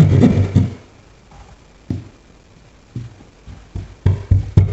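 Hand jab saw rasping through drywall in quick strokes, which stop about a second in. A few single knocks and scrapes follow as the blade is moved to the corner of the cut line, and the sawing strokes start again near the end.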